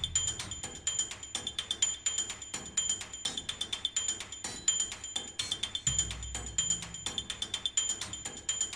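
Rapid metallic ticking, several short ringing ticks a second, with a low drone coming in about six seconds in: a music-like sound effect.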